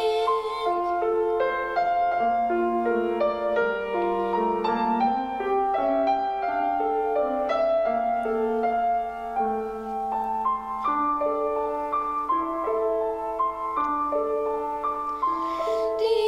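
Grand piano playing a slow instrumental interlude: a melody of held single notes over chords.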